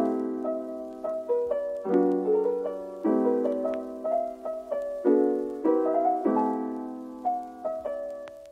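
Soft background piano music, with chords struck every second or two that ring and fade.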